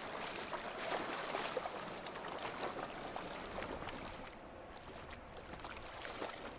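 Shallow river water splashing and sloshing, stirred by wading and a swimming dog, with many small splashes. It grows quieter about four seconds in.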